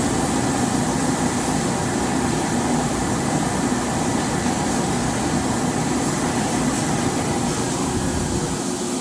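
48-inch Froriep vertical turret lathe running under power: a steady mechanical whir and hum with no change in speed.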